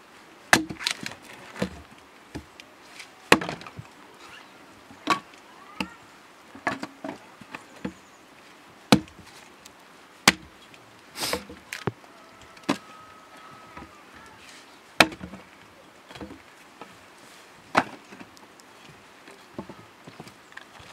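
Firewood being split into kindling with a hand-held blade: sharp chops and splintering cracks of wood, irregular and a second or two apart.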